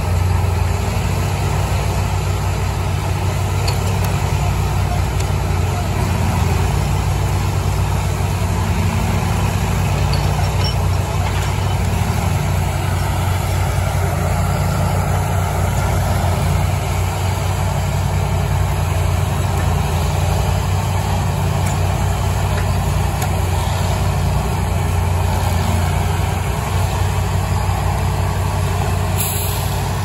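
The 1988 GMC Kodiak grapple truck's engine running at a steady speed, driving the hydraulic knuckleboom loader as it handles logs.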